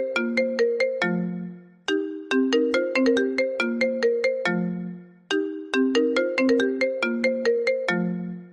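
Original iPhone ringtone playing: a short melody of quick notes that repeats about every three and a half seconds, each phrase ending on a longer low note.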